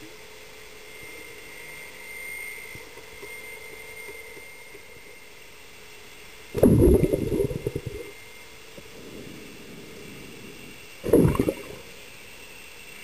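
Underwater sound in a swimming pool: a faint steady hum with a thin whine, broken twice by loud low rumbling gurgles of water and air, the first over a second long about six and a half seconds in, the second shorter about eleven seconds in.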